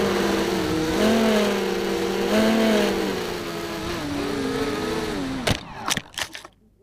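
FPV racing quadcopter's electric motors and propellers whining, heard from its onboard camera, pitch rising and falling with the throttle. About five and a half seconds in come a few sharp knocks as the drone hits the grass and tumbles, then the motors stop.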